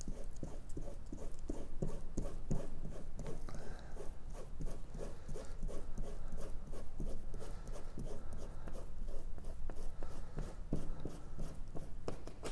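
Fingertips rubbing wet newsprint off the back of a packing-tape image transfer, in quick, even, repeated strokes that scrub the soaked paper fibres away and leave the ink on the tape.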